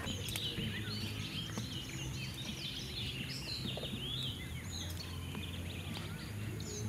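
Small birds chirping and twittering in an outdoor dusk chorus, many short overlapping calls, over a steady low hum.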